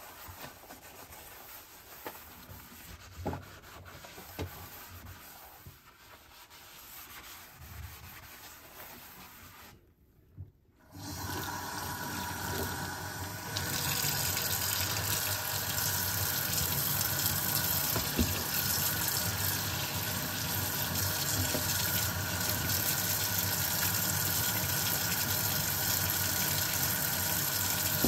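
Sponge scrubbing a soapy stainless steel sink, with a few light knocks. About ten seconds in there is a brief gap, then a kitchen tap runs a steady stream of water into the sink, growing louder a couple of seconds later.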